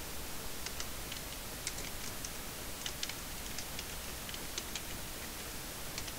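Computer keyboard keys clicking in short, irregular runs as a word is typed, over a steady background hiss.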